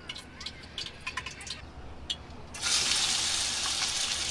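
A few light clicks and taps, then, about two and a half seconds in, a sudden steady rush of water pouring.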